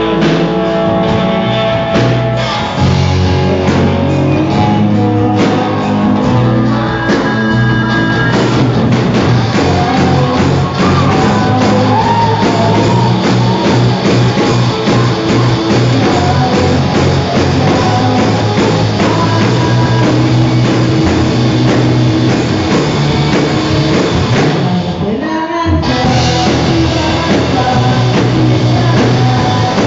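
Live rock band playing loudly: electric guitars and a drum kit with singing over them. About 25 seconds in the band stops for a moment, then comes back in.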